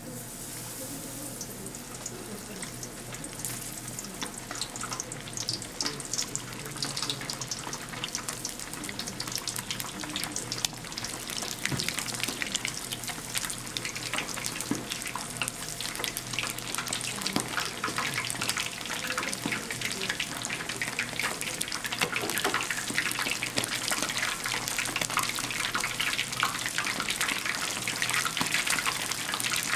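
Flour-coated whole scorpionfish deep-frying in oil at 160 °C, its first fry: a dense sizzle full of fine crackles that grows steadily louder.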